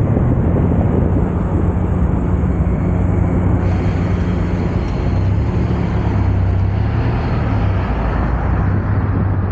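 Steady low rumble of a moving road vehicle: engine hum and road noise, the pitch of the hum shifting slightly about six seconds in.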